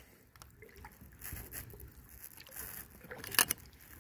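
Kayak paddle strokes in calm water: quiet dripping and trickling off the blades, with one short, sharper sound about three and a half seconds in.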